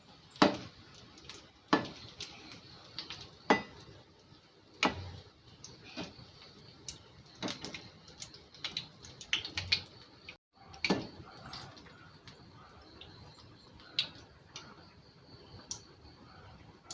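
Metal utensil clinking and knocking against the frying pan at irregular intervals while jackfruit fritters deep-fry, over a faint steady sizzle of hot oil.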